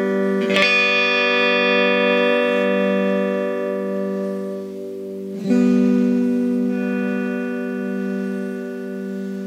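Home-built scrapyard electric guitar played through a small Fender guitar amp: strummed once about half a second in and again about five and a half seconds in, each time left to ring out and slowly fade.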